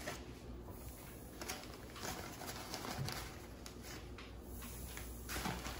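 Faint soft taps and rustling as floured shrimp are pulled from a plastic bag and dropped one by one into a wire deep-fryer basket, over a low steady hum.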